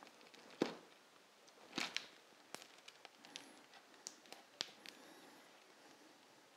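Small kitchen knife cutting the butcher's twine tied around a roast pork belly, about half a dozen faint, sharp snicks and taps as the strings part and the blade touches the cutting board.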